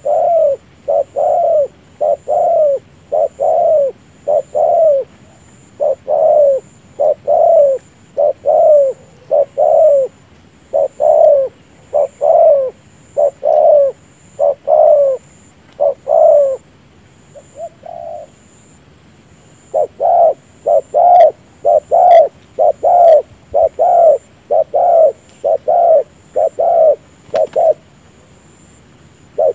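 Spotted dove cooing: short coos repeated one to two a second in a long run, breaking off for about two seconds past the middle and then going on faster. This is the cu gáy's cooing display, given with the chest lowered in a bow.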